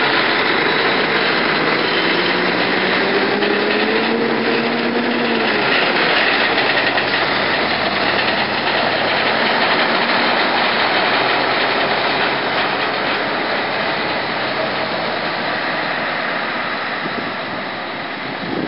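Heavy diesel trucks pulling loaded multi-axle trailers drive past and away along a gravel road, with a dense rumble of engines and tyres. The engine note rises for about five seconds, then drops. The sound fades slowly as the convoy moves off.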